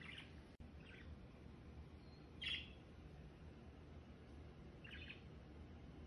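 Four faint, short chirps from a small pet bird, the loudest about two and a half seconds in, over a quiet steady low hum.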